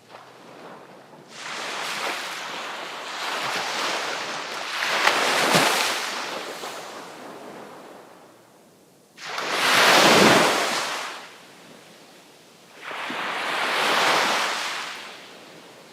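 Sea waves breaking and washing in: three surges, a long one building to a peak about five seconds in, a sharper one that rises suddenly about nine seconds in, and a smaller one near the end, with a quieter wash between them.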